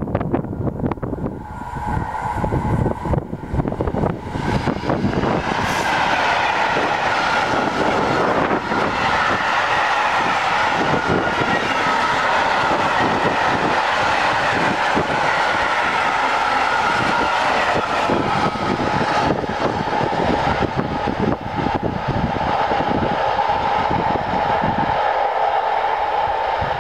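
A Class 66 diesel-hauled freight train passing close by, hauling a long rake of covered wagons. Wheels clatter over the rails under a steady high ringing tone. The sound builds over the first few seconds as the locomotive arrives, holds steady while the wagons pass, and the deep part fades near the end as the tail goes by.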